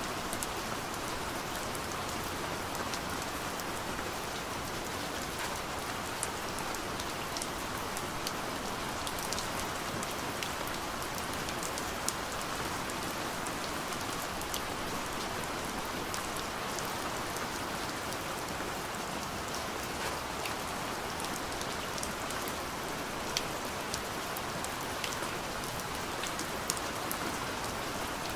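Steady gentle rain falling on a window, an even hiss with scattered individual drops tapping on the glass.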